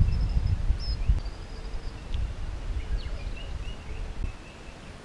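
Short bird chirps and whistles over a low rumble that fades out about four seconds in.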